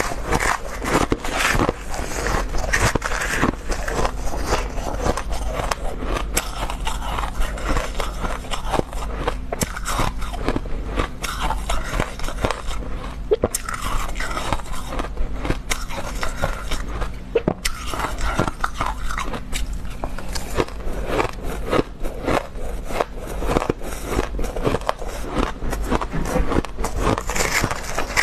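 Close-miked crunching and chewing of mouthfuls of crushed ice, a dense crackle of small breaking crystals, mixed with a metal spoon scraping and scooping through the ice in a metal bowl.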